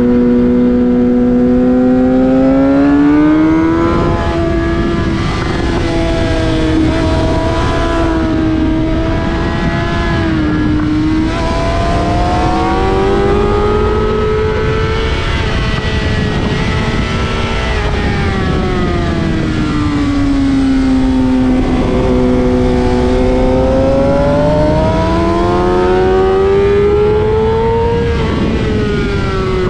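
Suzuki GSX-R sportbike engine at racing speed on track, recorded onboard. Its pitch climbs and falls several times as the throttle is opened and rolled off through the corners, over a steady rush of wind noise.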